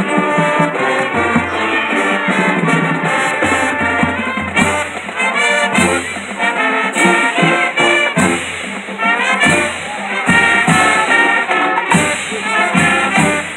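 High school marching band playing a brass-led tune with percussion hits.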